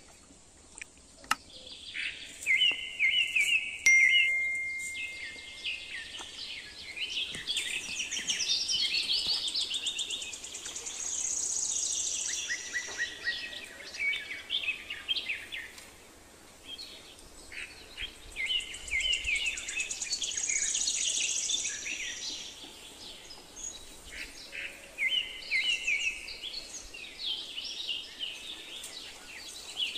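Birds singing and chirping, with bright repeated phrases that come and go, loudest about four seconds in.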